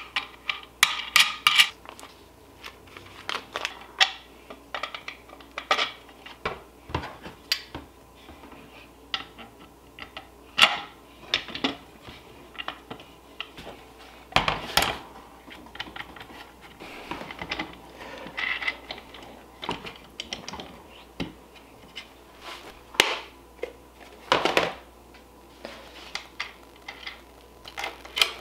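Irregular clinks, taps and knocks of small metal hardware (bolts, nuts, a screwdriver) against the metal brackets and plastic base plate of a Hoop Master hooping station being assembled by hand.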